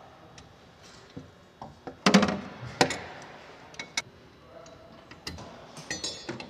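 Hand tools clicking and clinking against metal fittings on a helicopter's flight-control tubes. The sharp clicks come irregularly, the loudest cluster about two seconds in, with a brief high ringing clink near the end.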